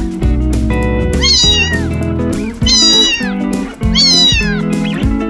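A cat meowing three times, each meow falling in pitch, over background music.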